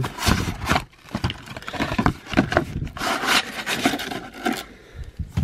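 Cardboard of a 2017 Topps Holiday megabox and its wrapped trading-card packs being handled: rubbing, scraping and crinkling as the box is opened and the packs are pulled out and stacked, with a longer scraping stretch about three seconds in.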